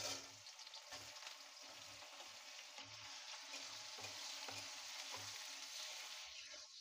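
Sliced onions sizzling in hot oil in a steel kadai, the hiss starting suddenly as they are tipped in and then going on steadily.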